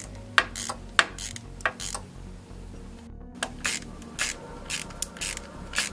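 Hand ratchet with a Torx T40 bit clicking in short strokes, about two clicks a second with a pause near the middle, as it unscrews the timing belt tensioner pulley bolt.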